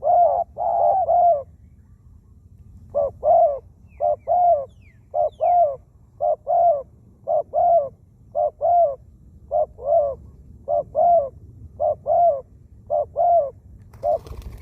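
Spotted dove cooing in a long series of two-note coos, about one pair a second, with a short pause near the start. A small bird chirps faintly a few times partway through.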